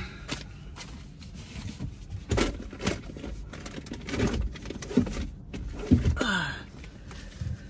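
Low rumble inside a stopped car's cabin, with scattered rustles and clicks and a few short, faint vocal sounds.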